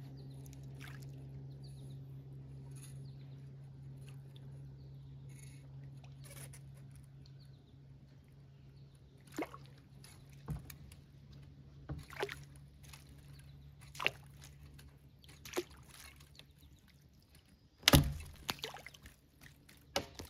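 Knocks and bumps on a small fishing boat's hull, coming every second or two and loudest near the end, over a low steady hum that fades out about halfway.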